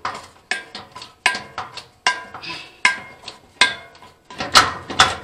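A quick, irregular run of clicks and scrapes, several a second, as the rubber-mounted photo eye of a kerosene torpedo heater is twisted and worked out of its hole in the sheet-metal housing.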